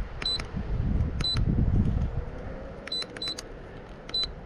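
Keypress beeps from a Suzuki C10 multifunction gauge: about six short, high beeps at irregular intervals as its menu buttons are pressed to set the fuel-tank capacity, over a low rumble in the first two seconds or so.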